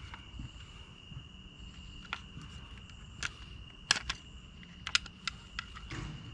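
Irregular sharp metal clicks and taps from hand tools working loose parts of a scrap piece, the loudest about four and five seconds in, over a steady high chirring of insects.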